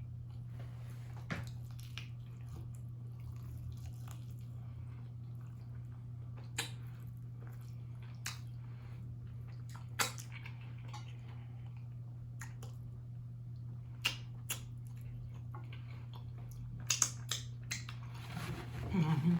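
Close-up eating sounds: wet chewing with scattered sharp mouth clicks, every few seconds and bunched near the end, over a steady low electrical hum. A short low vocal sound just before the end.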